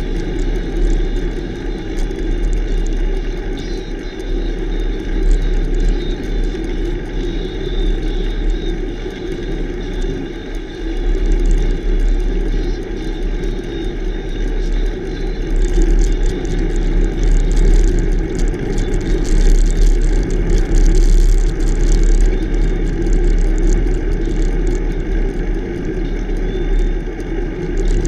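Wind buffeting a bicycle-mounted camera's microphone over the hum of the tyres rolling on a rough road shoulder, growing louder for several seconds in the middle.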